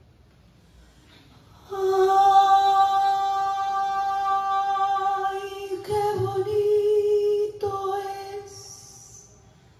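A single voice singing without accompaniment, coming in about two seconds in: one long note held for about four seconds, then two shorter sung phrases.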